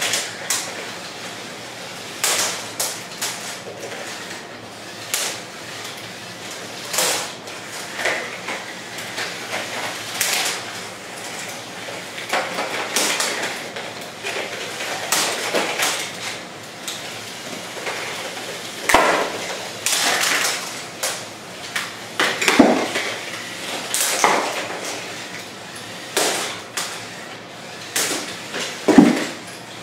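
Lego combat robots clashing: the plastic spinning weapons of a ring spinner and a bar spinner strike each other again and again, giving irregular hard clacks and rattles about once a second. The hardest hits come about two-thirds of the way in and near the end.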